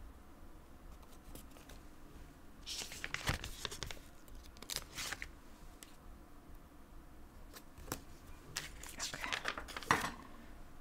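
Planner stickers being peeled off their backing sheet and pressed onto the paper pages of a notebook: short papery rustles and tearing sounds, one cluster about three seconds in and a longer one near the end, with a page turning just before the end.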